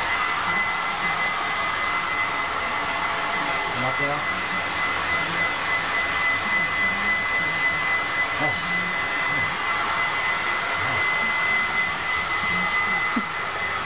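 Hair dryer blowing steadily, with a constant high whine in its sound that fades away near the end.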